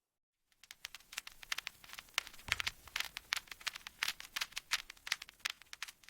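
Mechanical keyboard keys clicking in a fast, uneven patter, about eight to ten clicks a second, starting about half a second in, with one heavier low knock near the middle.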